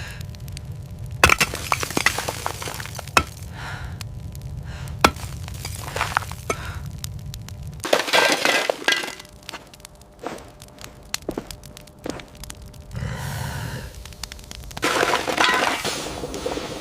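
Repeated sharp cracking and crunching, coming in several clusters, over a low rumble that stops about halfway through.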